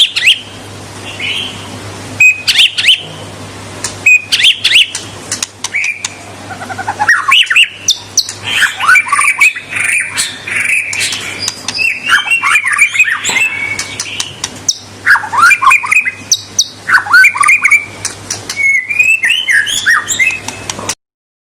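White-rumped shama (murai batu) singing continuously: a rapid, varied song of whistled phrases, quick rising and falling notes and harsh chattering calls. The sound cuts off suddenly near the end.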